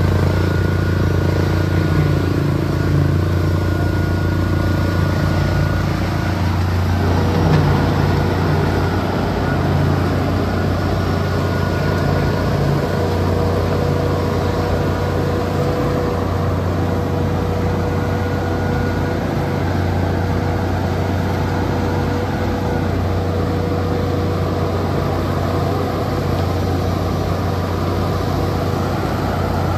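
Concrete pump truck's diesel engine running steadily, with a steady whine that joins about a quarter of the way in.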